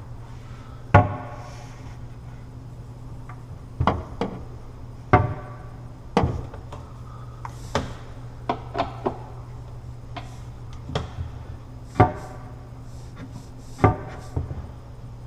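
Kitchen cabinet doors and their hinges being worked during hinge adjustment: about ten sharp wooden knocks and clicks spread irregularly through the stretch, some with a short ring, as doors are swung shut and the hinge screws are worked. A steady low hum runs underneath.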